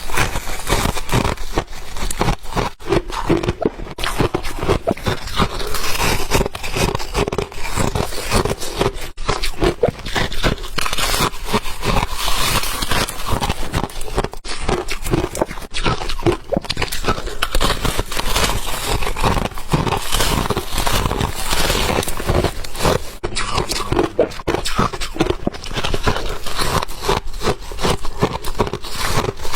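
White ice being chewed and crunched between the teeth: a dense, unbroken run of crisp crunches and crackles.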